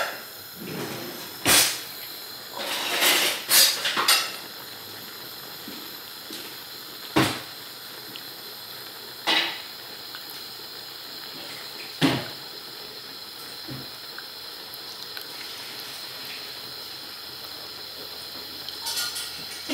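A pot of lota-stem and dried-fish curry boiling hard in an aluminium pot on a gas burner, giving a steady bubbling hiss. Sharp metal clinks of kitchenware break through it, with a cluster of several about three seconds in and single ones every few seconds after that.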